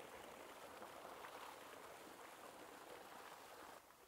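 Running water gushing from a pipe and splashing over whole dressed chickens and into a large metal basin as they are rinsed by hand; the splashing is a steady rush that drops off sharply near the end.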